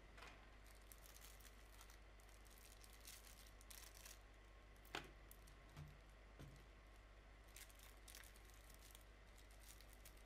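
Faint crinkling of a plastic bag as the Sun-Fix two-part repair putty pack is handled, with a single sharp click about halfway through.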